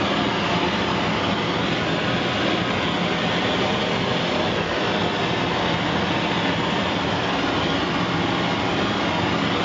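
Sievert propane torch with a 2943 nozzle burning steadily, a loud, even rushing noise with no breaks, as it heats a copper boiler; crosswinds are audibly disturbing the flame.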